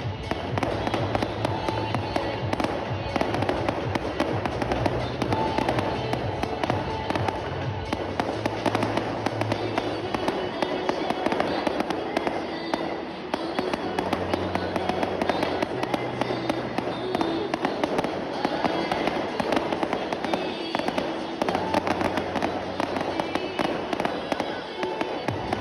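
Fireworks display, with a dense, continuous run of bursts and crackles, and music playing underneath.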